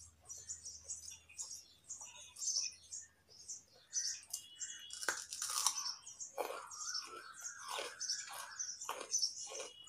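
Close-up crunching and chewing of raw carrot pieces, a run of short crisp cracks, loudest about five seconds in. Chirping is heard alongside in the second half.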